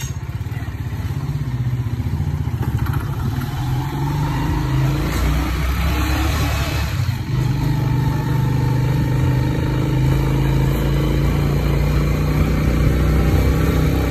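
Vehicle engine running steadily while driving slowly along a street, growing gradually louder.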